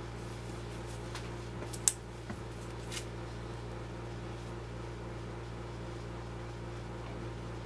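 Steady low hum with a few light clicks and taps, the sharpest just before two seconds in.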